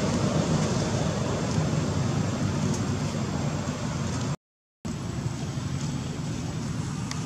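Steady background noise, a low rumble with a hiss over it, that drops out completely for about half a second a little past the middle and then carries on slightly quieter.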